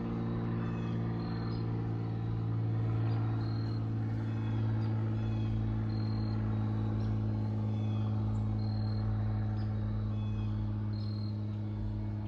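Cessna 182T Skylane's single piston engine and propeller droning steadily as the plane climbs away after takeoff. Short faint high chirps recur every two seconds or so.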